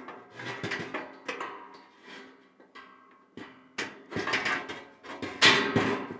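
Sheet-metal cabinet parts clanking and knocking together as a stabilizer is fitted into the side panels: a series of irregular knocks with short metallic ringing, the loudest near the end.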